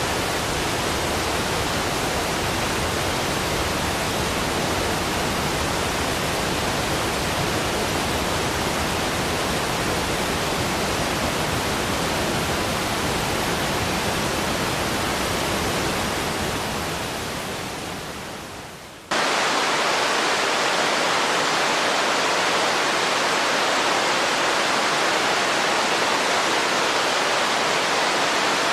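Steady rush of running water, a stream or waterfall. About sixteen seconds in it fades down, then a different, brighter and lighter water recording cuts in abruptly about three seconds later.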